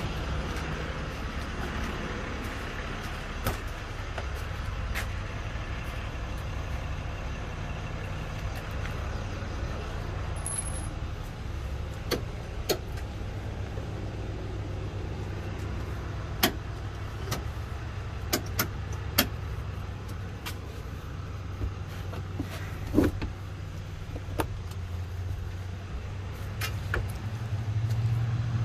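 A vehicle engine idling with a steady low hum, with scattered light clicks and knocks over it. Near the end the engine gets louder.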